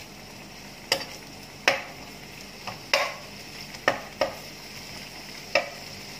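Metal spoon stirring food in a nonstick frying pan, knocking sharply against the pan about six times, with a steady sizzle of frying underneath.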